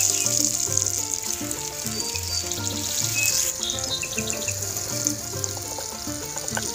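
Tempe slices and tofu blocks sizzling in hot oil on a flat griddle pan, the sizzle strongest for the first three and a half seconds or so, then easing. Background music with a regular bass line plays throughout.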